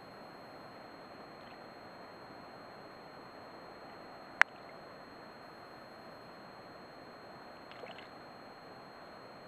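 Loch water lapping gently at the shore, a soft steady wash. A single sharp click about halfway through, the loudest sound, and a faint small splash near the end.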